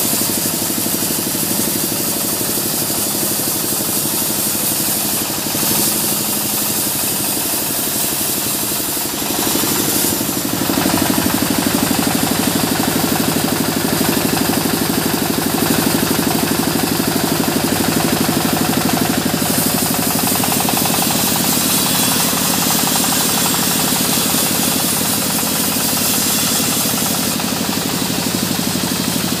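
Band sawmill running steadily, its blade sawing through a waru (sea hibiscus) log, a machine drone under a dense hiss from the cut. The sound gets slightly louder and fuller about ten seconds in.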